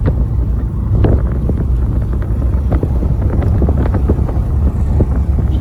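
Steady low rumble of a moving vehicle on the road, with wind buffeting the microphone and many short knocks and rattles.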